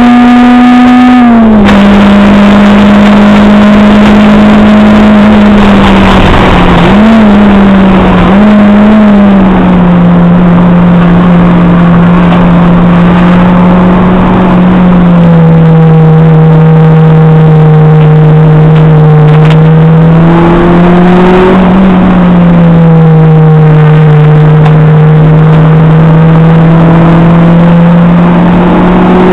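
Acura RSX Type-S's 2.0-litre K20A2 four-cylinder engine running hard at high revs, heard loud inside the cabin over road and wind noise. Its pitch steps down about a second and a half in, rises briefly twice a few seconds later, then drops again about halfway through and holds steady.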